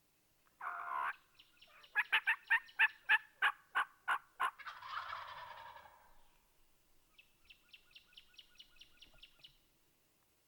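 Turkey yelping: a short raspy note, then a run of about a dozen loud, evenly spaced yelps at roughly four a second. Later comes a fainter, quicker run of yelps.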